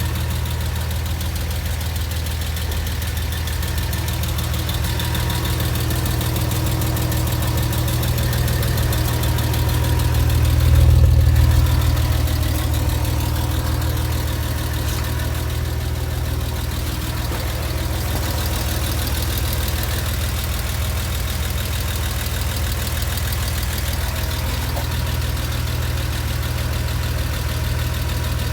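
Porsche Boxster 986 flat-six engine idling hot with a rapid, steady ticking over the idle, and a brief swell about eleven seconds in. The tick appears only after hard driving when the engine is very hot, and the owner wonders whether it comes from the lifters or the exhaust.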